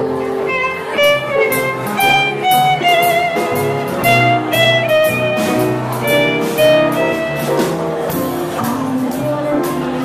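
Small jazz band playing, with a violin carrying the melody over upright bass notes and a steady drum beat.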